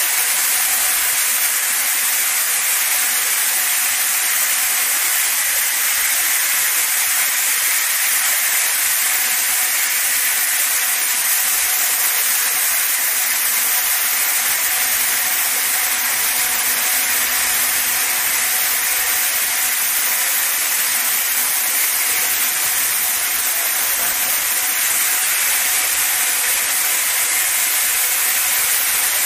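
Touchless car wash machine's high-pressure water jets spraying a car, a loud steady hiss with a faint steady hum under it.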